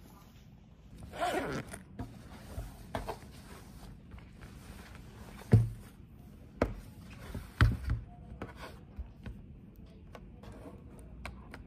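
A zip pulled open about a second in, then a laptop and other hard items set down on a wooden desk with several sharp knocks. The loudest knock comes about five and a half seconds in, and two come close together near eight seconds.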